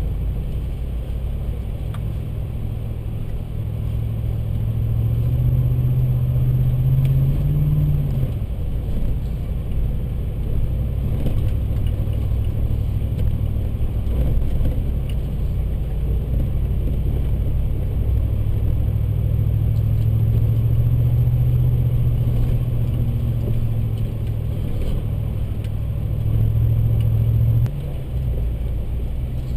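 Ford Raptor pickup's engine heard from inside the cab, a low steady drone as it drives a dirt trail. Its pitch climbs about five seconds in and drops at about eight seconds, climbs again in the second half and falls off suddenly near the end.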